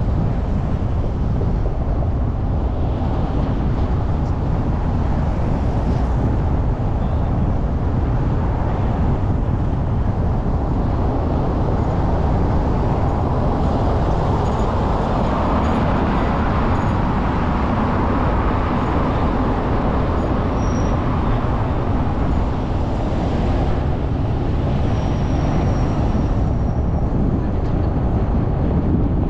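Steady rumble of wind and road noise from a moving motorcycle, swelling louder for several seconds midway.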